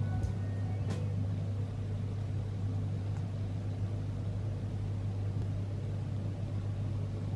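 Breville Barista Express espresso machine running with a steady low hum, typical of its vibratory pump.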